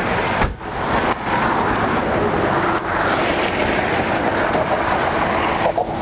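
Steady rush of interstate traffic passing at highway speed, with a faint steady hum joining about four and a half seconds in.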